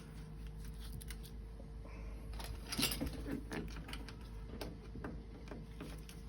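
Scattered small metallic clicks and knocks of burner parts and tools being handled during reassembly, a brief cluster of them about three seconds in, over a steady faint hum.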